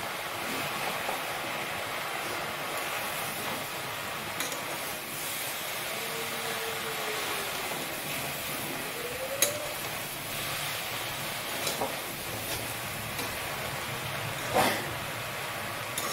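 Giant taro (mankochu) chunks frying in a kadai on a gas stove: a steady sizzling hiss. A metal spatula clicks and scrapes against the pan a few times, sharpest about nine and fourteen seconds in.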